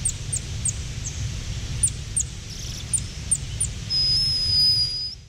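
Golden lion tamarin chirping: a quick run of short, very high chirps, each falling in pitch, then one long, steady high whistle about four seconds in, over a low background rumble.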